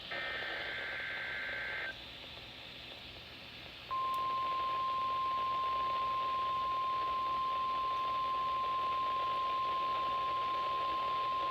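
An Emergency Alert System SAME data burst, a raspy two-pitch digital screech lasting about two seconds, then after a brief gap the NOAA Weather Radio 1050 Hz warning alarm tone starts about four seconds in and holds one steady high tone. The sequence opens a severe weather alert broadcast.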